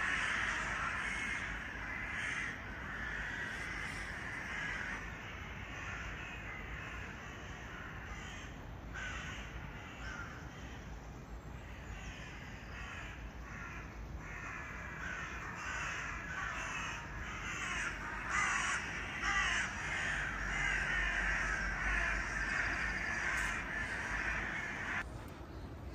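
Crows cawing, many calls overlapping with hardly a pause, louder near the start and again in the last third.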